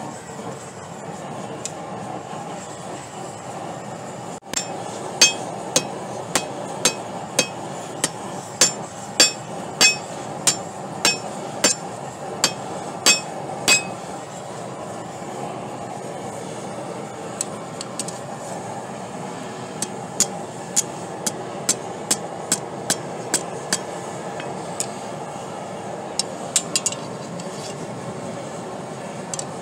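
Hand hammer striking steel on an anvil: sharp metallic blows about two a second, in two runs with a pause of a few seconds between. Under them a gas forge runs with a steady rush.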